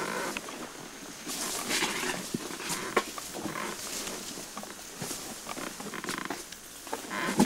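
Tall grass swishing and rustling against an elephant and its riders as it pushes through, coming in repeated swells with scattered snaps and clicks.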